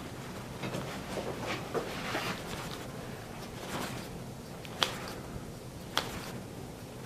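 Two sharp joint pops about a second apart, near the end, as a chiropractor adjusts the patient's joints, over faint rustling of body and clothing on the treatment table.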